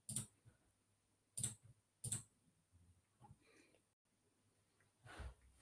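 A few soft, sharp computer mouse clicks, three of them in the first two and a half seconds and fainter ones later, as a screen share is started on a video call.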